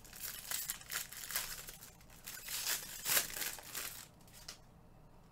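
Trading-card packaging being torn open and crinkled by hand, a run of crackling rustles that stops about four and a half seconds in.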